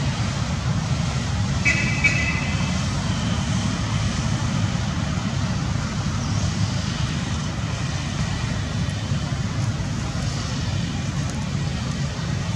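A steady low rumble of background noise, with a brief high-pitched chirp about two seconds in.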